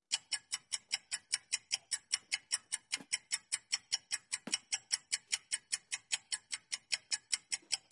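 Countdown-timer sound effect: a clock ticking fast and evenly, about five ticks a second.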